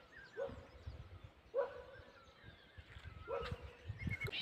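A dog barking, three faint barks at uneven intervals, with birds chirping softly in the background.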